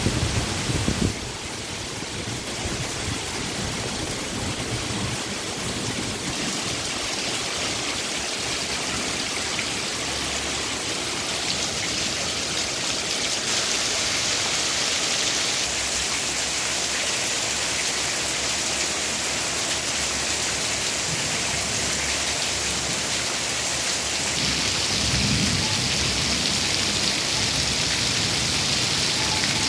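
Heavy monsoon rain pouring steadily onto grass, puddles and a paved path: a dense, even hiss of downpour.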